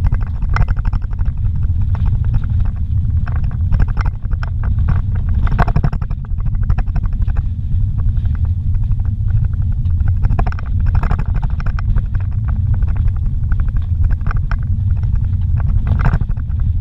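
Car driving on a dirt road, heard from inside the cabin: a steady low rumble from the engine and tyres, with scattered knocks and rattles.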